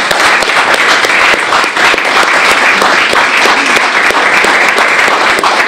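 Audience applauding: loud, steady clapping from many people.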